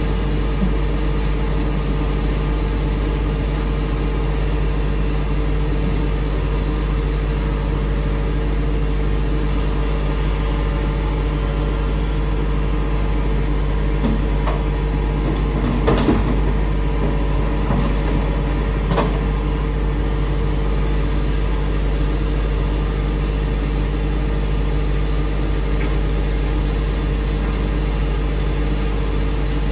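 Hitachi Zaxis 210F excavator's diesel engine running steadily. About halfway through, a few knocks and a clatter as the bucket dumps earth and rock into the dump truck's steel bed.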